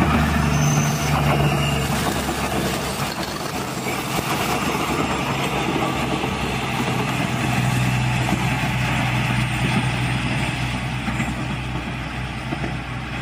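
A KAI diesel multiple-unit passenger train passes close by: a steady engine drone over the rumble of its wheels on the rails, easing off slightly near the end.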